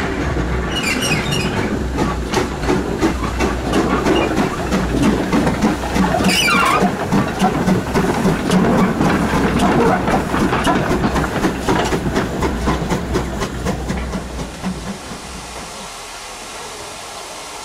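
GWR Small Prairie 2-6-2 tank locomotive 5541 working away under steam, its exhaust beating in an even rhythm over steam hiss, with a brief falling high squeal about six seconds in. The sound fades over the last few seconds as the engine draws away.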